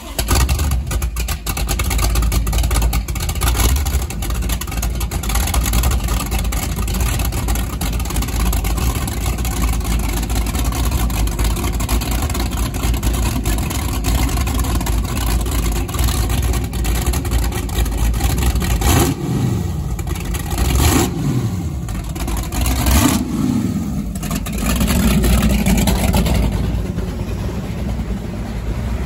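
Twin supercharged Chevrolet 496 big-block V8 marine engines running together for the first time, exhausting through the transom outlets with cooling water spraying out. They run at a loud, lumpy idle, with several throttle blips making the revs rise and fall about two-thirds of the way in.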